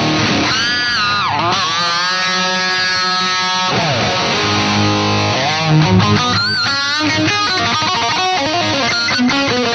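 Distorted electric guitar, an EVH Striped Series played through a Line 6 Amplifi 75 on a high-gain 'brown sound' preset. A note dips in pitch and comes back up, then a long held note rings out, followed by further bends and a quicker run of picked notes.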